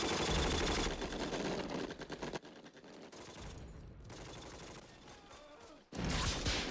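War-film battle soundtrack: dense, rapid rifle and machine-gun fire for the first two seconds or so, thinning to quieter, scattered distant fire, then a sudden loud burst of combat noise near the end.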